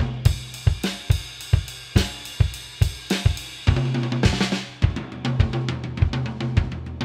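Acoustic drum kit played with sticks: a steady groove of drum and cymbal strokes, then about four seconds in a cymbal crash and ringing low drum hits leading into a quick run of evenly spaced strokes.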